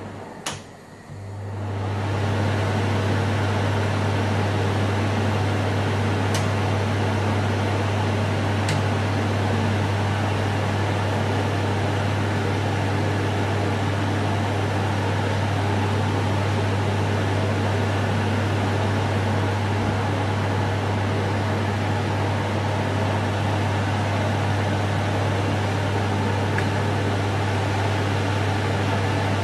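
A button click on a cooker hood's control panel, then the hood's extractor fan spins up to a higher speed over about two seconds. It then runs steadily, a low motor hum under rushing air.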